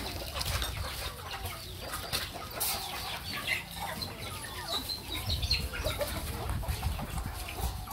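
Chickens clucking, a scatter of short calls over a steady low rumble.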